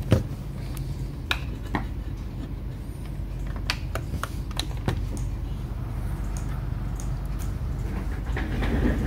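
A laptop being handled: scattered sharp clicks and taps at irregular spacing, like keys and plastic parts being pressed, over a steady low hum.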